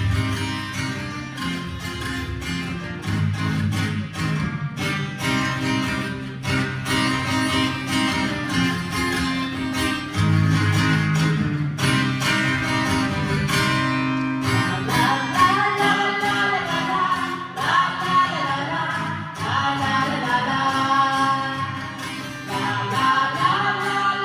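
A song with acoustic guitar strumming and a steady bass line; a voice comes in singing the melody about two-thirds of the way through.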